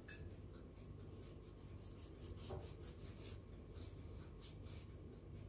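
Kitchen knife sawing through a soft homemade sesame hamburger bun: a run of faint, quick rasping strokes, about three a second.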